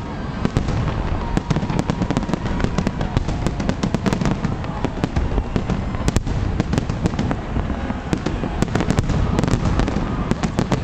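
Aerial fireworks display in full barrage: many shell bursts a second, sharp bangs and crackles overlapping over a continuous low rumble.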